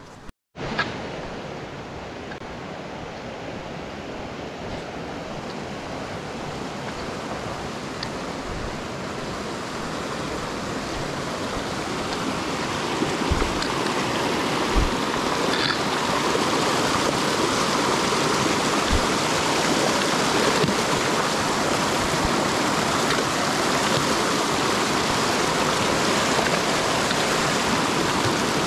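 Steady rush of flowing water, like a mountain stream, growing louder over the first half and then holding steady.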